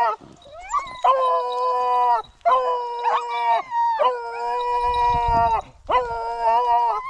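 Scent hound baying: about four long drawn-out calls on one steady pitch, each a second or more with short breaths between, after a short rising call near the start. The hound is giving tongue on the line of game.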